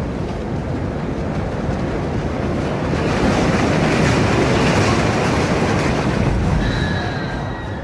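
Roller coaster train running along steel track: a dense rumble and rush that swells to its loudest in the middle, then eases. Near the end a thin, steady high squeal comes in.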